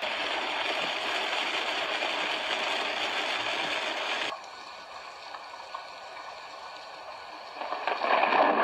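Storm rain and wind making a steady hiss, which drops suddenly to a quieter hiss about four seconds in and swells loud again near the end.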